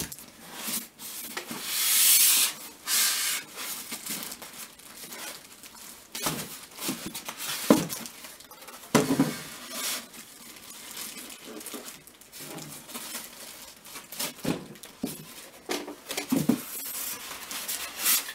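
Packaging being handled: foam packing inserts rubbing and knocking and a plastic wrapping bag rustling as a sewing machine is worked out of its box. There is a long loud rustle about two seconds in, and irregular knocks and thumps after it, the sharpest near the middle.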